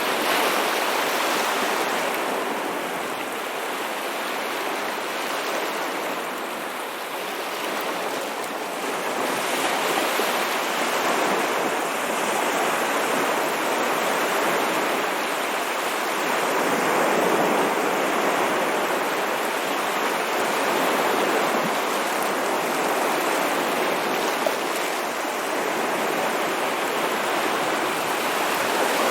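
Ocean waves washing on a shore, a continuous rush of surf that swells and eases every few seconds.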